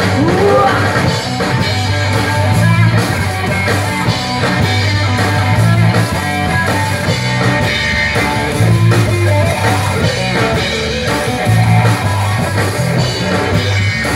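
A rock power trio playing a song: electric guitar, bass and drums in an instrumental passage between sung lines, with a steady, repeating bass line.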